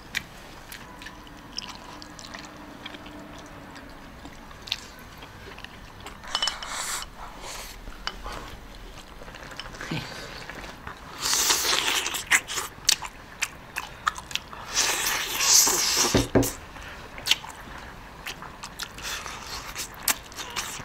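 Close-miked eating: chewing and biting into stewed meat, with small wet clicks. There are louder spells about six seconds in, from about eleven to thirteen seconds, and around fifteen to sixteen seconds.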